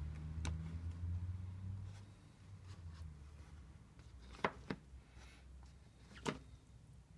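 A few short, sharp clicks of a rusty bicycle chain's links knocking together and against a plastic tub as the chain is laid into the liquid, two of them close together past the middle. A low hum fades out over the first few seconds.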